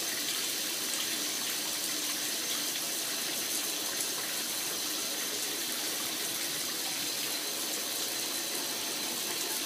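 Shower water spraying and running steadily into a bathtub, an even hiss.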